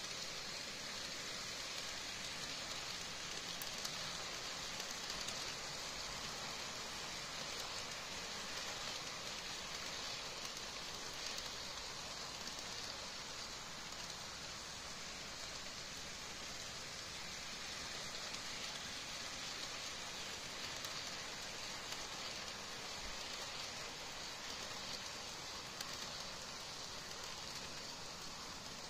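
Empty HO-scale intermodal well cars rolling past on the track close by: a steady hissing rattle of wheels on rail. It eases slightly near the end as the last car goes by.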